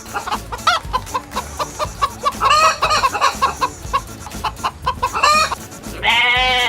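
Chickens clucking in a rapid string of short calls, with a few longer, drawn-out calls among them. Near the end a loud, drawn-out bleat begins.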